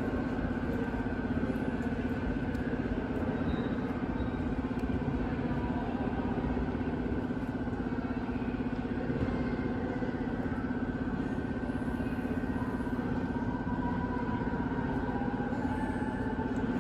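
A steady machine hum with a fast, even pulse.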